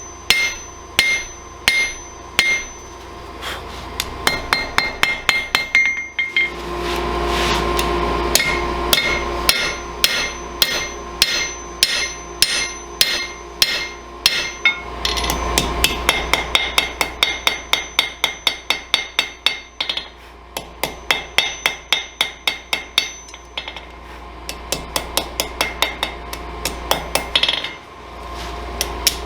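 Blacksmith's hand hammer striking a hot railroad spike on an anvil during rough forging of a blade, each blow with a metallic ring. The blows are slower at first, then quicken to about three or four a second over a steady low hum from about six seconds in.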